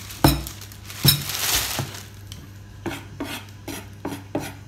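Kitchenware knocking and clinking on a tabletop during food preparation: two sharp knocks with a brief ring about a second apart, then a run of lighter taps, about three a second, near the end.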